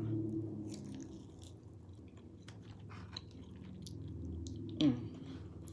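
A person chewing a mouthful of food, with soft wet mouth clicks, and a brief vocal sound near the end.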